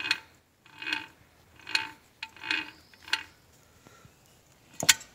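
Spur gears of a Lima four-speed gearbox clattering as its input pulley is turned by hand in second gear. The clatter comes in short spells a little under once a second, and a single sharp metallic click follows near the end.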